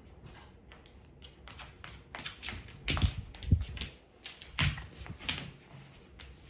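Bengal eagle-owl's talons clicking and tapping on a wooden floor as it scrambles after a cat-teaser toy. The taps come in quick irregular runs, with heavier knocks about three seconds in and again around four and a half to five seconds.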